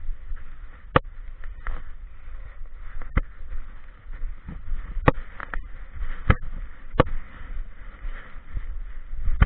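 Handling noise from an action camera strapped to a dog as it noses through grass and bushes: a low rumble and rustling of fur and leaves against the camera, with about six sharp knocks of the camera mount at uneven intervals.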